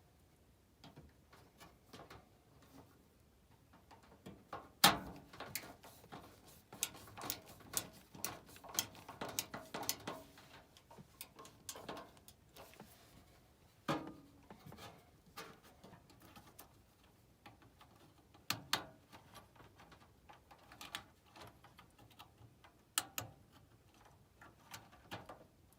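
Scattered clicks, taps and knocks of hands working on furnace parts and wiring, with one sharper knock about five seconds in, while a new blower-motor run capacitor is fitted and wired.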